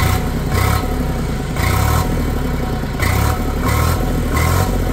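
Sonalika DI 35 tractor's diesel engine running, heard at its upright exhaust stack, with an uneven pulsing in its sound. It is run to show its condition: no smoke from the exhaust, and the seller calls it a completely silent engine.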